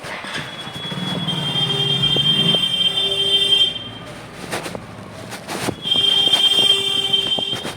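A loud, high-pitched whistling tone sounds twice, each time held steady for about two seconds.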